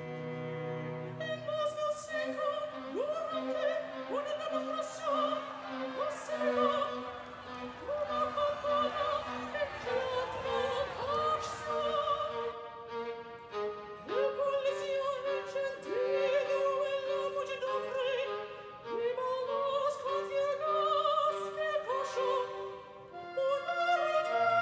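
Operatic singing with orchestral accompaniment: voices with wide vibrato holding and sliding between notes over strings.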